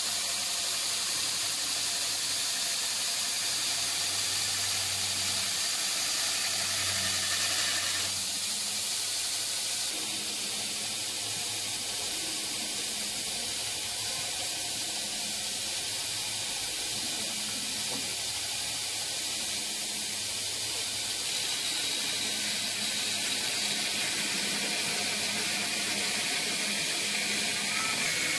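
Steady hiss of a belt grinder running, with a 440C steel blade held against the abrasive belt at first; the sound thins a little about eight seconds in.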